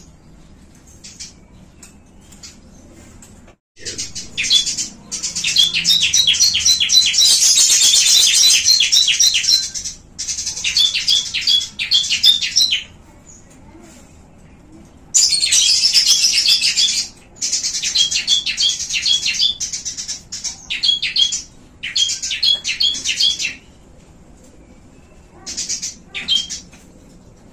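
Small cage birds, a Eurasian tree sparrow, a bar-winged prinia (ciblek) and a lovebird, chirping and chattering in rapid, high-pitched runs of notes. The song comes in several bursts of a few seconds each, the longest about six seconds, with short quiet gaps between them.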